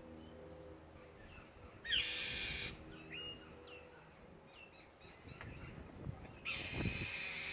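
A small bird calling: two loud, harsh, raspy cries, one about two seconds in and a longer one near the end. Between them come a few short chirps and a quick run of high notes.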